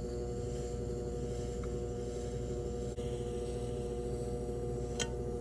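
Electric potter's wheel running with a steady motor hum, with a single click near the end.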